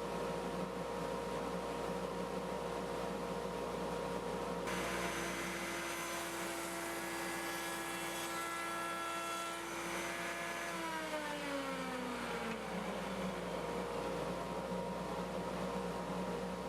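Router table's router running at full speed with a steady high whine, then switched off about eleven seconds in and winding down with a falling pitch over about two seconds. A steady lower hum runs underneath.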